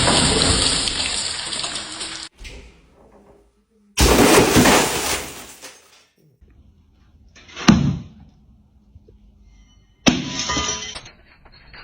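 Glass breaking and shattering in four separate crashes: one fading out early, another about 4 s in, a sharp short crash near 8 s, and another about 10 s in, with quiet gaps between.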